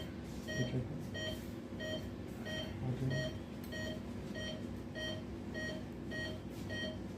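Operating-theatre patient monitor beeping with each pulse: a short, steady-pitched beep about one and a half times a second, a heart rate of roughly 90 a minute.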